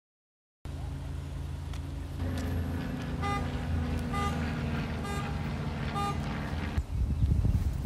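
Traffic noise with a vehicle engine running steadily and a short pitched beep repeating four times, about once a second. The engine hum cuts off abruptly near the end.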